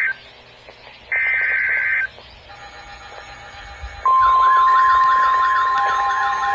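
Emergency Alert System SAME header: two bursts of screeching two-pitch digital data tones, each about a second long, a second apart. About four seconds in, a loud steady alert tone starts, with a warbling siren-like tone over it.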